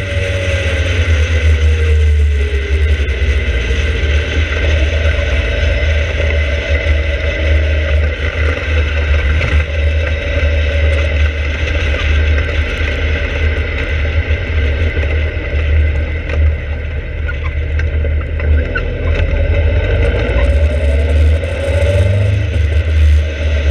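Open-cockpit sports car running at track speed, its engine heard under heavy wind rumble on the onboard microphone. The engine note falls in the first few seconds and climbs again near the end.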